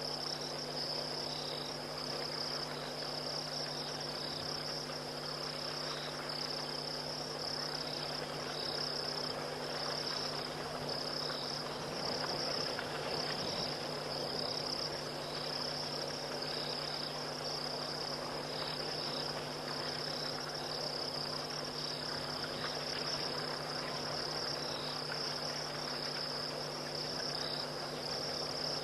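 Night insect chorus: a steady high-pitched trill that never breaks, with shorter chirps repeating in and out just below it, over a faint even haze.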